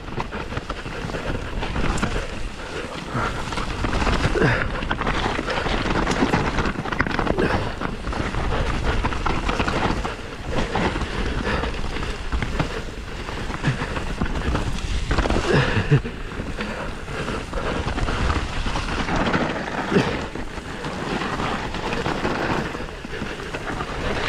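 Mountain bike being ridden along a dirt trail: wind buffets the microphone over the rush of the tyres, with frequent knocks and rattles from the bike.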